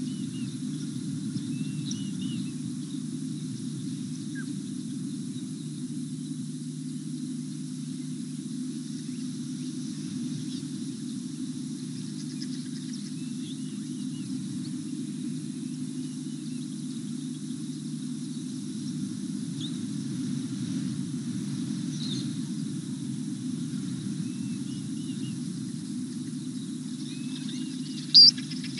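Outdoor waterhole sound: a steady low hum, a faint high insect hiss, and a few scattered short chirping calls. A single sharp click sounds near the end.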